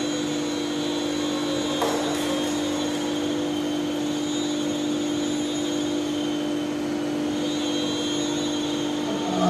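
Steady electric motor hum of an animatronic dinosaur ride working through its movements, with one click about two seconds in.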